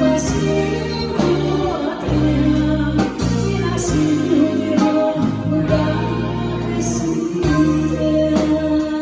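A song performed live with a band backing track, a woman singing over steady bass notes and keyboard.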